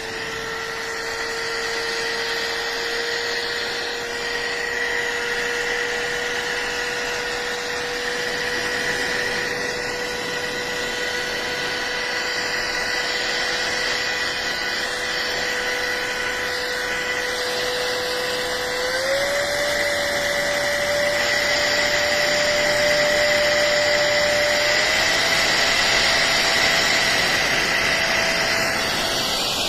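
Handheld electric air duster's high-speed motor and fan running with a steady whine. It steps up to a higher speed twice, about 19 and 25 seconds in, getting a little louder each time.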